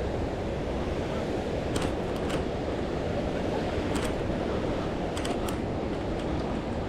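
Steady rush of a river running over small rocky step-down falls, with a few short faint clicks.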